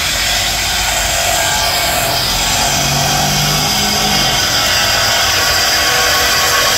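Power tool running steadily under the car, a loud high hiss with no break, as the exhaust is worked on for a secondary catalytic converter delete.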